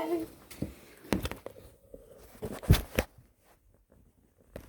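The tail of a held hummed or sung note, then a few sharp knocks and thumps with quiet between them, the loudest pair a little under three seconds in.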